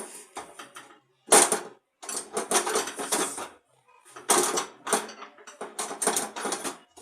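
Irregular bursts of scraping and clicking from hand work on a gas stove's metal parts, with short gaps between them.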